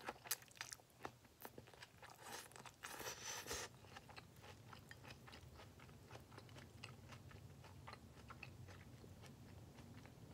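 A person chewing baked spaghetti squash close to the microphone: wet mouth clicks, busiest in the first four seconds, with a brief slurp about three seconds in, then fainter chewing.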